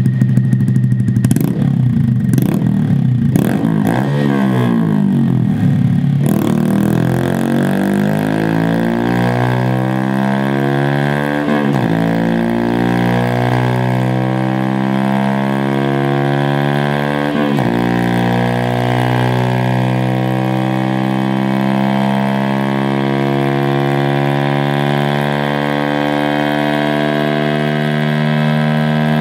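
Honda Monkey 125's single-cylinder engine breathing through a Scorpion Red Power full exhaust with the dB killer removed, running on a dyno. It is blipped in quick revs at first, then held in a long, steady pull whose note dips briefly twice.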